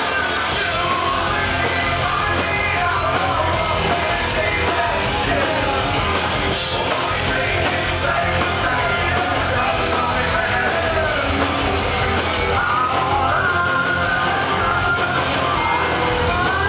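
Rock band playing live with electric guitar and drums, a singer yelling and singing over the music.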